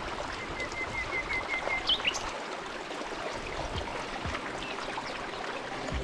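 Mountain stream running steadily. Over it a small bird gives a quick series of about eight short chirps at one pitch, followed by a couple of short rising notes.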